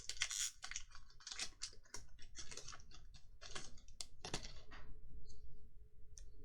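Magic: The Gathering trading cards being handled and flicked through one by one, a quick irregular patter of card-stock clicks and short slides.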